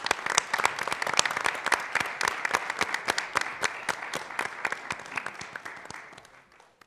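An audience applauding, the many claps thickest early on and dying away near the end.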